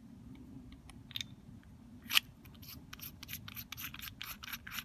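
Small metal clicking in a quick, even series, about five or six clicks a second, while the pressure gauge is screwed onto the paintball tank's fill valve body. A single sharper click comes about two seconds in.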